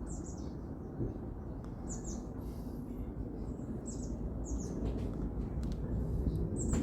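Small birds chirping: short, high, downward-sliding notes about once a second, over a steady low background noise.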